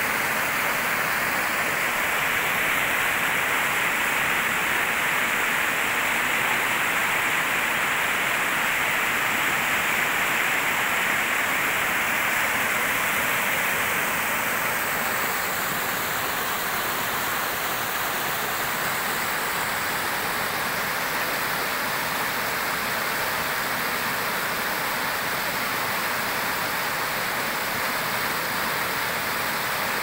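River water flowing, a steady, even rush; its tone changes a little about halfway through.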